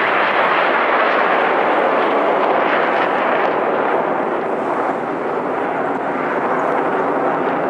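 Aircraft flying past, its engine noise a loud, steady rush that dips slightly about five seconds in.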